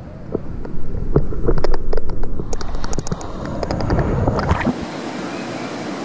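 Seawater sloshing and splashing around a camera at the surface as a wave breaks, with a low rumble and many sharp crackling droplet hits. About four and a half seconds in it gives way abruptly to a steadier, even hiss.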